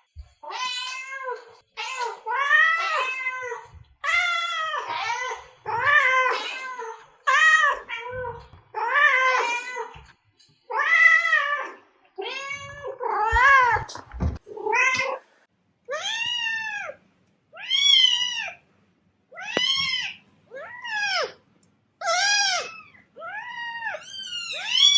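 Domestic cat meowing over and over, about one meow a second, each call rising and then falling in pitch. About halfway through the meows turn higher-pitched and shorter. A couple of brief low knocks come just before the change.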